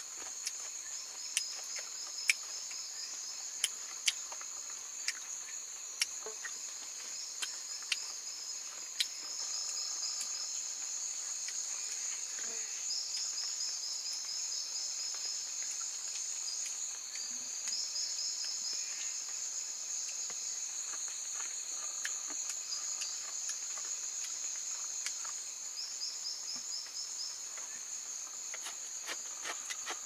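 Chorus of night insects: a steady high-pitched chirring with bouts of fast pulsing trills repeating on top. A series of about ten sharp clicks stands out over the first nine seconds or so.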